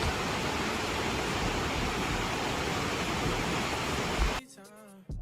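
Steady rushing water, a river or waterfall in a rainforest, that cuts off sharply near the end.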